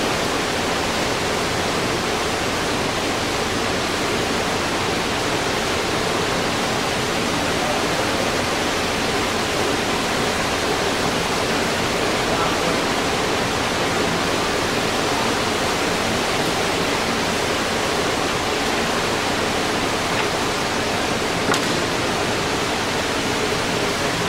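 LeBlond ND engine lathe running under power, its carriage moving slowly along the bed on power feed: a steady, even rushing noise with a faint hum in it. Near the end there is a single click.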